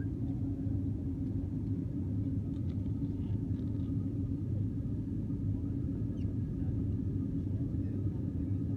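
Airliner jet engines and rushing airflow heard from inside the cabin during the climb after take-off: a steady, even low rumble with a constant hum running through it.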